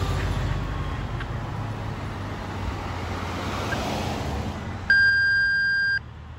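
Fire engine's diesel engine rumbling steadily as the truck drives off, with road noise. About five seconds in, a loud, steady, high radio alert tone sounds for about a second and then cuts off: a dispatch tone ahead of a radio call.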